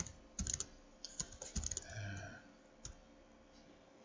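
Typing on a computer keyboard: quick runs of key clicks in the first two seconds and a single click near three seconds, then it stops.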